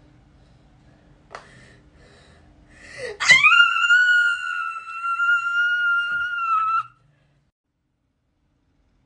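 A woman's high-pitched mock-crying wail: it shoots up in pitch, is held for about three and a half seconds, then cuts off abruptly.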